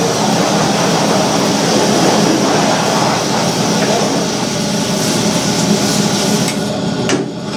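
Hose spraying water onto a screen-printing screen as a final rinse: a steady rush of spray that cuts off about seven seconds in.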